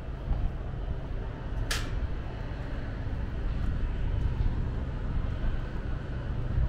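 Low, steady outdoor rumble, with one short hiss a little under two seconds in.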